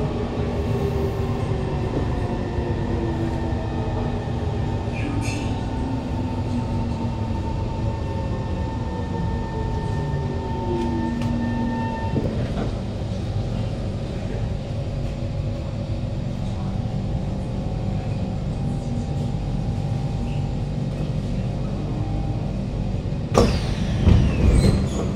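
Traction motors of a Kawasaki Heavy Industries C151 train, a GTO-VVVF inverter type with a strong motor sound, whining in several tones that fall together as the train brakes into a station. The whine cuts off about halfway through as the train stops, and the steady hum of the car carries on. Near the end the doors open with a sudden loud clatter.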